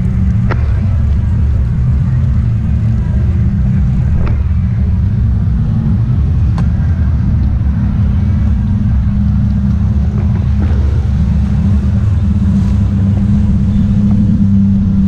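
Jet ski engine running steadily underway, heard from on board as a loud, even low drone, with a few faint ticks over it.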